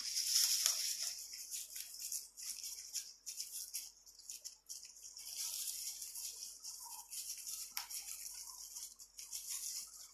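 Footsteps crunching and scuffing on a dry dirt path strewn with leaves, an uneven scratchy rustle with many small clicks.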